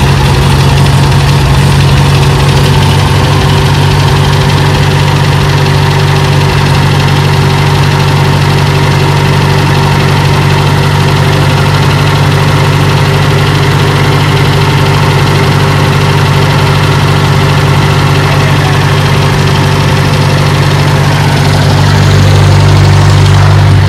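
Farmall M tractor's four-cylinder gasoline engine running steadily just after a cold start, getting a little louder near the end.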